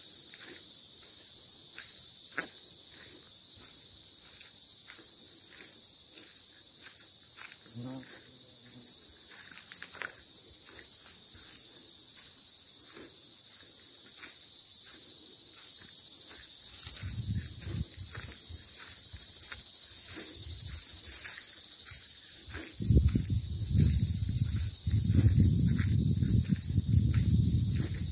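A chorus of cicadas, an unbroken high-pitched buzz. A low rumble joins it briefly about 17 seconds in and again for the last five seconds.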